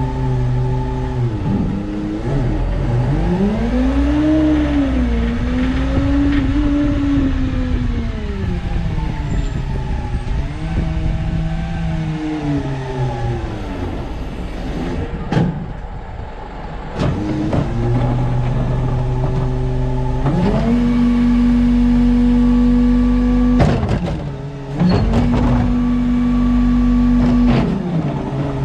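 New Way Mamba side-loading garbage truck's engine, first rising and falling in speed as the truck drives and shifts, then held at steady raised revs through most of the second half, with a dip about three-quarters through. The raised revs drive the automated arm's hydraulics while a cart is dumped into the hopper. A few sharp knocks sound around the middle and near the end.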